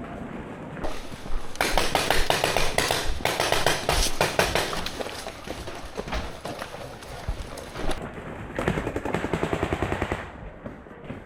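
Paintball markers firing rapid strings of shots, a long run of quick pops followed by a shorter run near the end.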